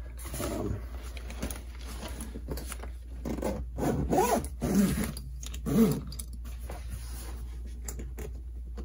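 Zipper on a nylon painter's tool backpack being pulled shut in several strokes, with the fabric scraping and rubbing as the bag is closed. The loudest zip pulls come about four to six seconds in.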